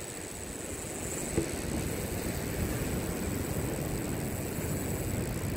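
Steady low rumble of wind on the microphone at the beach, growing slightly about a second and a half in, with a faint high steady whine above it.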